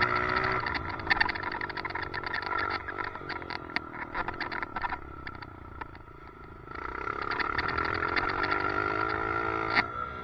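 Dirt bike engine revving, easing off about five seconds in and picking up again from about seven seconds. A fast clicking rattle runs over it, which the rider puts down to a loose helmet chin mount.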